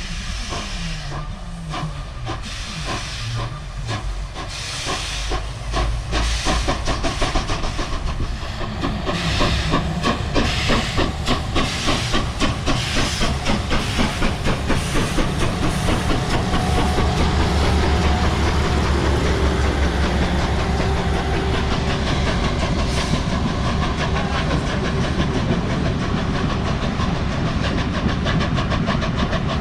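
Steam locomotive 464.202 pulling away with steam hissing, its exhaust chuffs starting slow and coming faster and faster until they merge into a steady rush. A low steady drone joins about halfway through.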